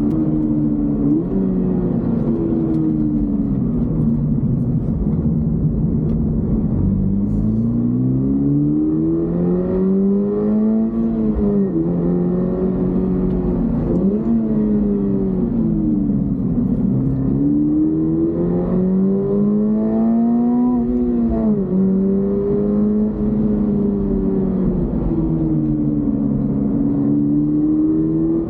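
Toyota GR86's flat-four boxer engine being driven, revs climbing in long pulls and dropping sharply at upshifts, with easing-off stretches in between and a steadier cruise near the end.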